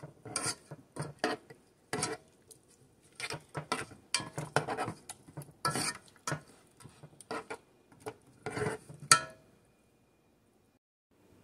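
Metal spoon stirring cooking berries in a non-stick saucepan, clinking and scraping against the pan in irregular strokes, stopping near the end.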